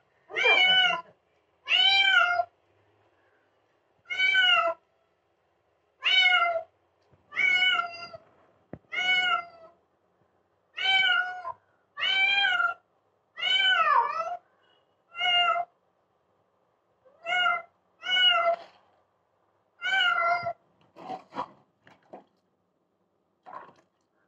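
A domestic cat meowing loudly over and over while it is being bathed and soaped: drawn-out calls about once a second, becoming shorter and fainter near the end.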